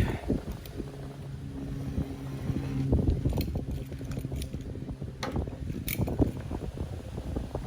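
Wind buffeting the microphone, with a steady motor hum for a few seconds near the middle and a handful of sharp clicks.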